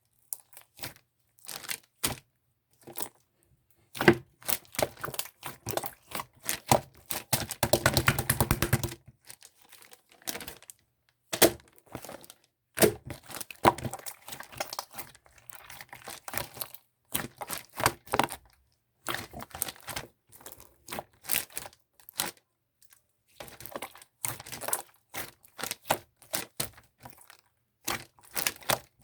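Rapid, irregular clicks and crackles of something being handled by hand, broken by short pauses, with a denser crinkling run about eight seconds in.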